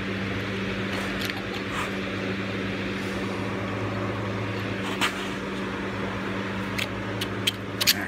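Scattered light metal clicks as a Kubota diesel's rocker arm assembly is handled and set down onto the cylinder head studs, several coming close together near the end. A steady low hum runs under it all.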